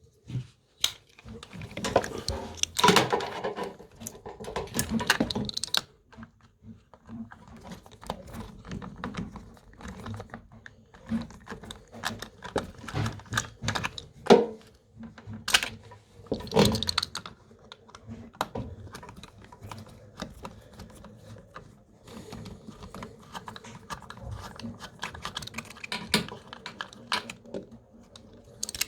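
Irregular clicking, tapping and rattling of hands and tools handling the plastic and metal parts of a washing machine, with louder clattery stretches now and then.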